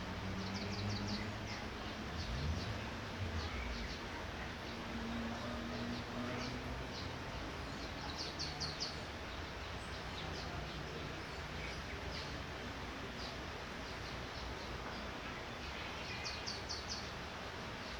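Steady hiss of light rain, with a bird chirping in quick little series several times, around 1 s, 8.5 s and 16.5 s in. A low rumble runs through the first three seconds or so.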